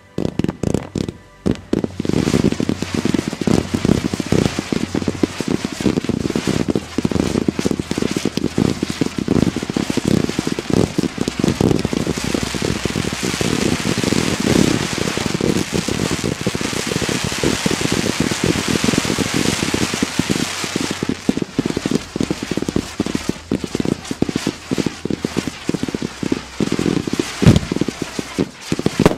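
Firework finale from batteries (cakes) firing together. A few separate shots come first, then from about two seconds in a dense, unbroken barrage of shots and crackle, with a stronger hissing rush through the middle. It ends abruptly.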